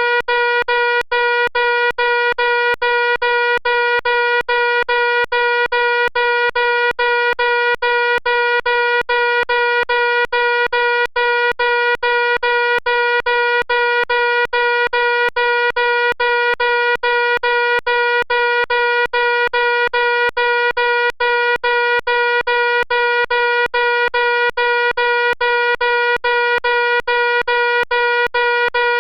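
Electronic fire alarm sounding a loud, steady high-pitched tone, held without pause and flickered by many tiny breaks.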